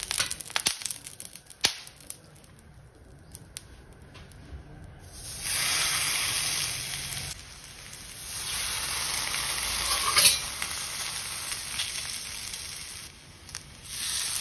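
Light crackling from hot oil on a cast-iron tawa, then a steady sizzle starting about five seconds in as a round of thalipeeth dough is laid on the pan. The sizzle swells again around eight seconds as a second round goes down.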